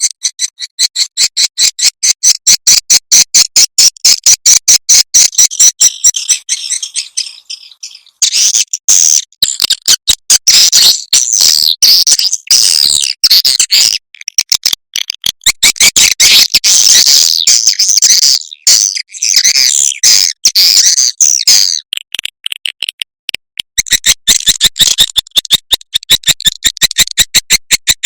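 Swiftlet lure call: swiftlets twittering in dense, rapid, high-pitched chirping pulses, several a second, with a few short breaks. It is a calling and roosting sound played to draw swiftlets into a bird house.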